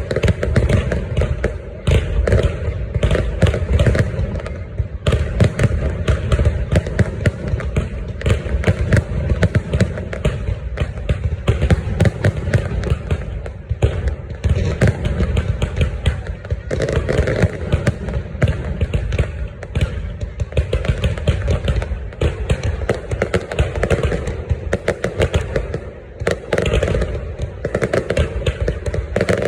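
Fireworks going off without a pause: many overlapping bangs and crackles, densely packed and loud.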